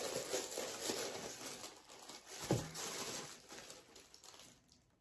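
Tissue paper rustling and crinkling as a shoe box is rummaged through by hand, with small taps and clicks throughout and a brief falling squeak about halfway. The rustling dies away near the end.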